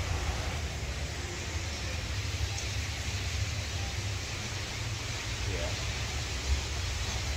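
Steady hiss over a low rumble with no distinct events: the background noise of a large indoor hotel atrium.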